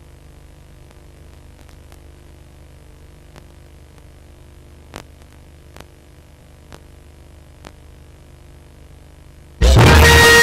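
Steady low hum and hiss with a few faint clicks. Music starts abruptly near the end.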